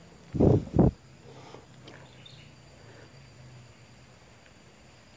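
Two dull low thumps in quick succession about half a second in, then faint forest background with a steady high insect drone.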